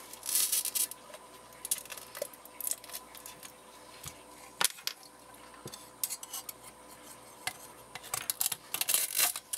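Shards of a shattered glass fog light lens clinking and scraping as they are levered out of the housing with a screwdriver, in scattered bursts of small clicks, busiest near the start and near the end.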